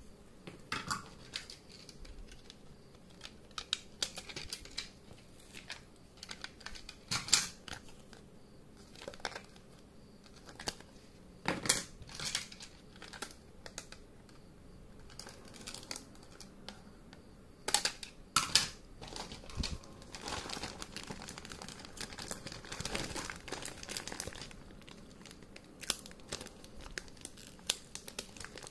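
Hard plastic Plarail toy track pieces clicking and knocking as they are handled, with a clear plastic bag crinkling. The crinkling is densest for a few seconds past the middle.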